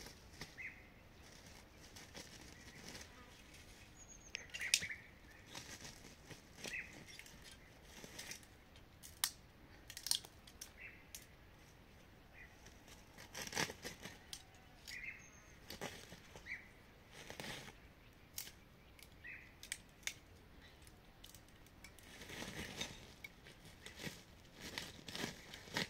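Scattered light rustling and clicking, with short chirps now and then over a faint hiss.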